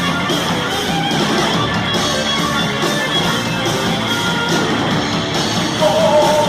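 Heavy metal band playing live, with distorted electric guitars over bass and drums; a voice comes in near the end.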